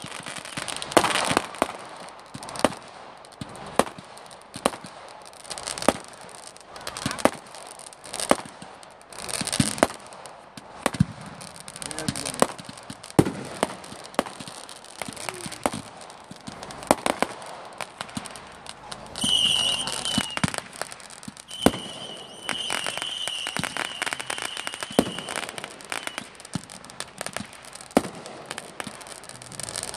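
Fireworks display: irregular bangs and crackles from bursting shells, with a high, steady whistle for several seconds past the middle.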